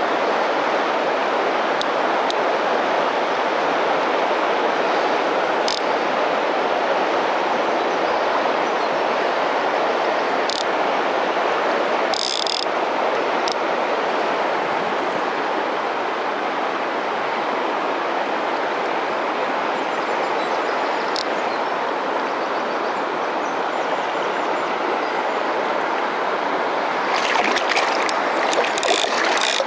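Steady rush of a broad, fast river's current, an even noise. A few brief sharp clicks come through it, with a quick cluster of them near the end.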